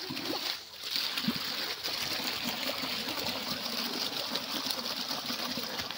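Irrigation water gushing up out of an underground pipeline outlet and splashing into a dirt field channel: a steady churning rush of water.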